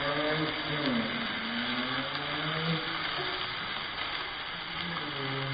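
Steady hiss from spring onions frying in a wok on a gas stove, with indistinct voices talking in the background.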